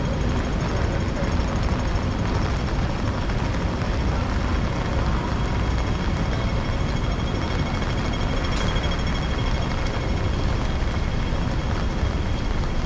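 Steady city-street ambience in stormy weather: a dense, even hiss of wind and rain mixed with traffic, heaviest in the low end. Faint steady high-pitched tones run through it, and there is a single sharp tick about eight and a half seconds in.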